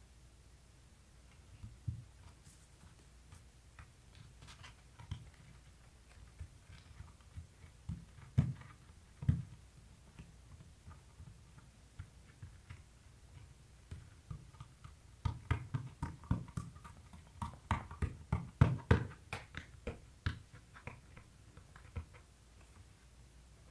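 Hands pressing and rubbing clear grip tape down onto a skateboard deck: soft pats and thumps on the board, scattered at first, then a quick run of strokes a little past the middle.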